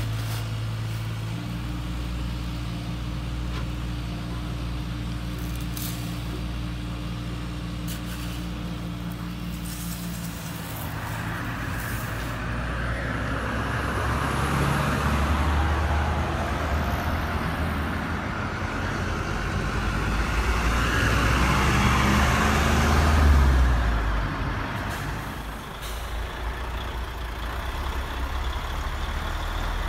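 Radio-controlled model truck's sound module playing a diesel truck engine: a steady idle, then revving up and down as the truck moves, loudest a little after two thirds of the way in.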